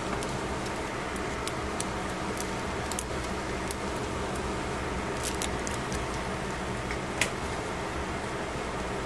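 A steady machine hum, like a fan, with scattered light clicks and taps from handling a sauce squeeze bottle over a foil-lined tray. One sharper click comes about seven seconds in.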